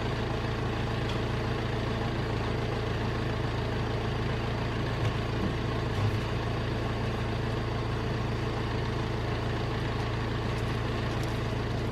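Caterpillar backhoe's diesel engine running at a steady speed.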